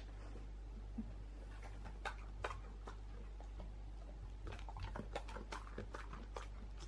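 Dog chewing a treat taken from a hand: small scattered crunches and mouth clicks, growing more frequent in the second half, over a faint steady hum.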